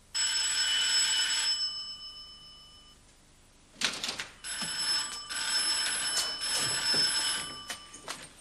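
Electric doorbell ringing twice: a short ring that dies away, then a longer ring of about four seconds.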